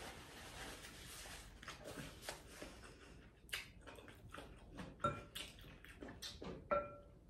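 Soft rustling of a paper towel wiped over the face, then a string of quiet clicks and wet taps as a spatula stirs thick sauce in a glass bowl, two of them with a short ringing note.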